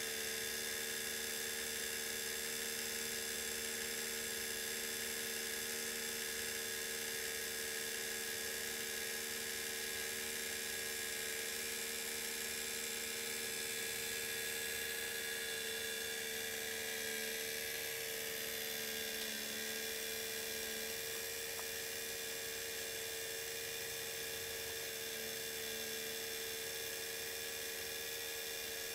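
Steady electric hum of a small motor running, a constant whine that holds its pitch throughout.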